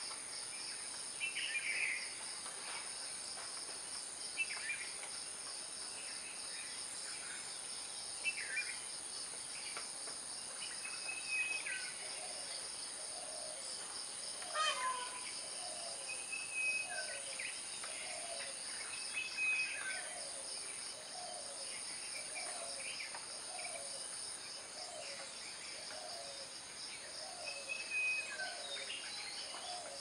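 Insects drone steadily and high-pitched, with scattered short bird calls over them. From about twelve seconds in, a low call repeats steadily, a little less than once a second.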